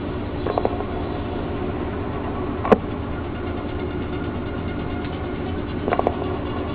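A steady hum made of several even low tones, broken by a few short clicks about half a second in, near the middle and near the end.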